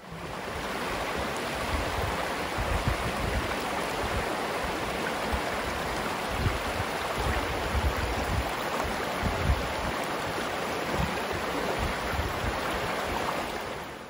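Mountain stream rushing and splashing over rock ledges as a steady watery hiss, with occasional low buffets of wind on the microphone.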